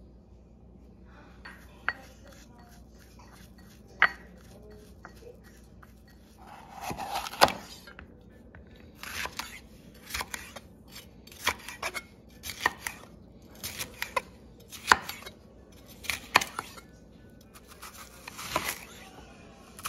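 Chef's knife slicing a red bell pepper on a wooden cutting board: sharp knocks of the blade striking the board. Two lone knocks come first, then a steady run of about one a second from about seven seconds in.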